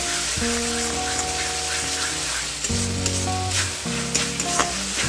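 Green peas and spice paste sizzling in a metal wok as they are fried down, with a metal spatula stirring and scraping against the pan in short clicks. Background music with held notes plays over it.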